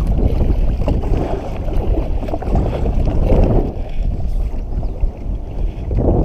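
Gusty wind buffeting a GoPro's microphone: a loud, low rumble that swells and eases, mixed with water lapping at the kayak.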